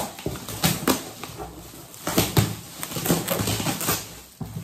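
Metallic foil gift-wrapping paper crinkling and tearing as a present is ripped open by hand, in irregular rustles and crackles.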